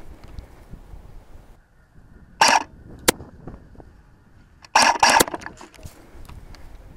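Two short, loud airsoft shots about two and a half seconds apart, each a sharp burst of noise. A crisp click follows the first, and several clicks come with the second.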